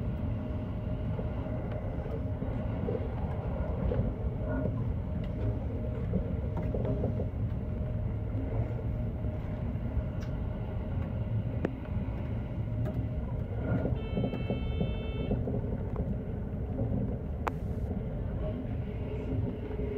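JR West 321 series electric train running at speed: a steady low rumble of wheels and running gear with a faint steady hum. A short tone sounds about fourteen seconds in, and there is a single click a few seconds later.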